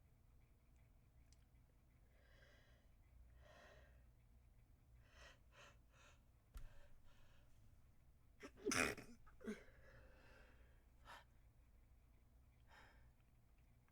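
A person stifling sneezes. A few quick breaths in, then a muffled sneeze a little past halfway, the loudest sound, followed closely by a smaller one and a couple of faint breaths.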